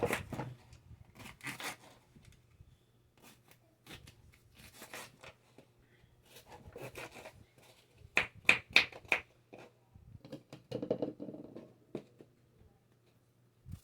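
Irregular rustling, scraping and light clicks of hands handling ingredients on a kitchen counter, with a cluster of sharp clicks about two-thirds of the way through. A steady low hum runs underneath.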